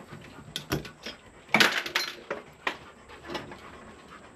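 Metal tools clinking and knocking together as they are handled, a run of irregular sharp clicks with the loudest cluster about one and a half seconds in.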